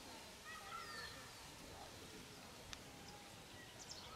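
Faint open-air ambience with small birds chirping: short falling chirps and a few thin whistled notes over a soft steady hiss, with a couple of faint clicks.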